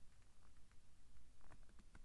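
Faint crackles and ticks of thin book paper being handled, a few small ones about one and a half seconds in, between page turns.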